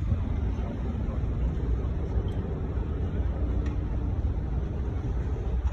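Low, steady rumble of a small motorboat's engine running as the boat manoeuvres.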